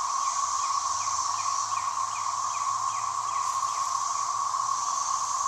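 Dense chorus of cicadas, a loud steady drone without a break. A short falling chirp repeats over it about three times a second through the first three seconds or so.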